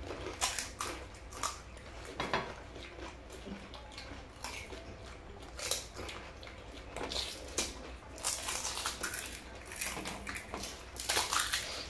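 Fuchka (pani puri) being eaten by several people: scattered small cracks and crunches of the crisp hollow shells being broken open and bitten, with clinks of spoons and shells against plates and bowls. The sounds come irregularly and fairly quietly.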